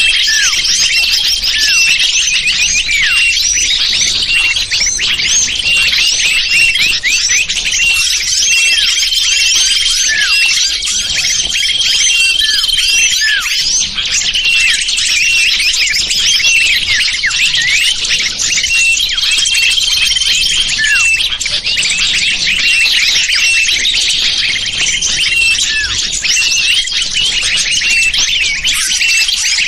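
Bird-lure call for small birds: a dense, continuous chorus of many small birds chirping and twittering, with a thin steady whistle note about a second long coming back every few seconds.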